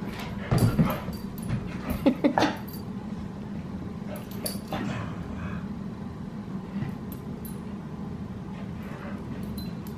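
Australian cattle dogs vocalising in play: short bursts, loudest about half a second in and again around two seconds in, with fainter ones later.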